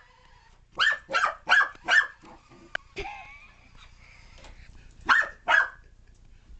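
Corgi puppy barking: a quick run of four barks, a short pause, then two more barks.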